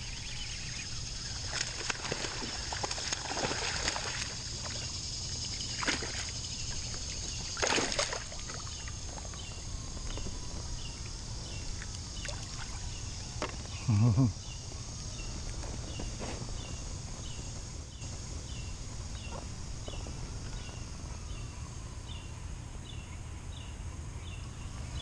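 Water sloshing and lapping against an inflatable kayak and its paddle, with several sharp knocks and splashes in the first eight seconds and a brief loud low sound about fourteen seconds in. Under it runs a steady high-pitched drone, and from about halfway on there is a run of small, evenly spaced ticks.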